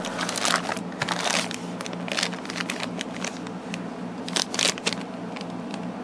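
Plastic accessory bags crinkling and rustling in short crackles as they are handled, over a steady low hum from an air conditioner.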